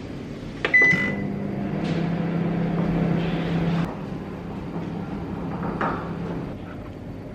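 A click, then a single short high beep, and a household appliance starts up with a steady low electrical hum. The hum drops a little lower about halfway through and fades out near the end, with another click shortly before it stops.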